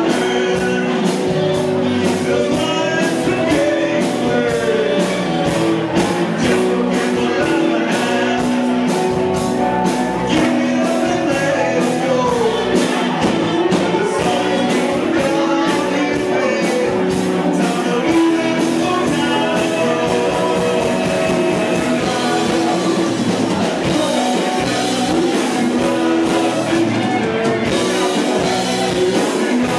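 Live rock band playing: two electric guitars, drums, saxophone and keyboards, with a lead vocal over a steady beat.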